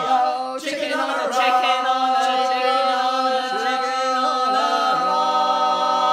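Four men's and women's voices singing a sea shanty unaccompanied in harmony, briefly catching breath, then holding one long final chord.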